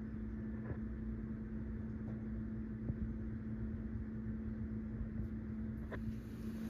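Steady low appliance hum on one pitch over a faint rumble, with a few faint ticks.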